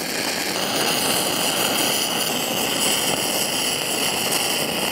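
Stick-welding arc of a 6010 rod laying a root pass at about 95 amps: a steady crackling hiss as the digging arc burns in, with a high steady tone joining about half a second in.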